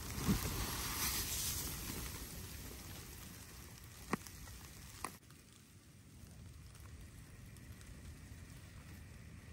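Wind gusting against a tent with snow hitting the fabric, heard from inside. A gust swells over the first two seconds, two sharp ticks come about a second apart near the middle, and the sound then drops quieter.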